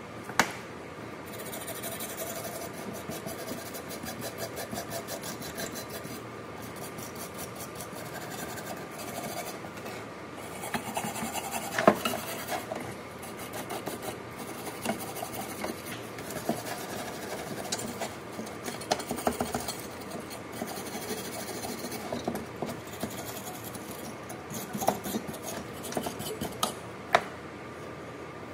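Wire hand brush scrubbing rust off a Nissan 240SX fuel sending unit's metal tubes and flange: a scratchy scraping in quick strokes, broken by a few sharp knocks, the loudest just after the start and about 12 seconds in.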